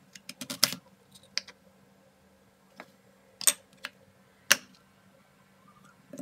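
Kitchen knife cutting peeled potatoes on a plastic cutting board: a quick run of sharp taps about half a second in, then single knocks of the blade on the board every second or so.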